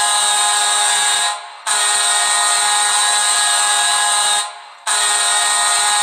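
Chicago Blackhawks arena goal horn blasting in long, loud, steady blasts of one deep pitch. It cuts out briefly about a second in and again past the middle, so three blasts are heard.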